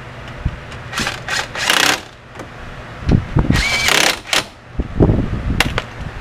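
Hands-on brake work with tools and metal parts: scattered knocks and clanks, and two short loud bursts of hissing noise, about a second in and again around four seconds in.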